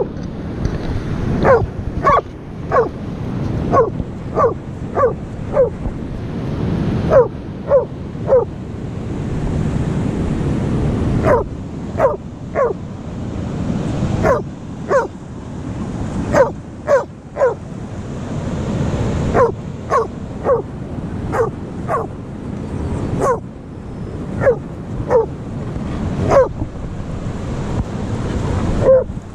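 Dogs barking over and over in quick runs of two or three barks with short pauses, over the steady rush of surf.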